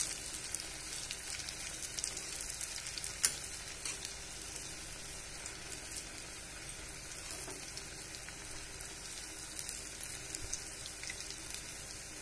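Bondas deep-frying in hot oil in an iron kadai: a steady sizzle with scattered small crackles. One sharper click stands out about three seconds in.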